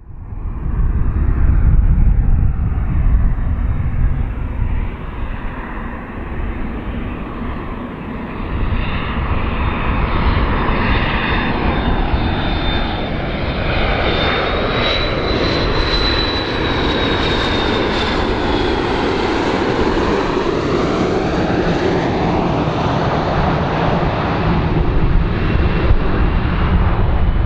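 Airplane flying past, its engine roar sweeping as it goes by, with a high whine that rises and then falls in pitch around the middle. The sound cuts in abruptly at the start.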